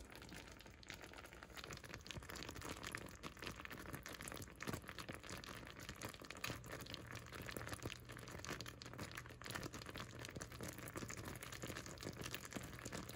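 Caramel sugar syrup boiling and foaming in a saucepan, a faint steady crackle of many small bubbles popping, as it nears soft-ball stage.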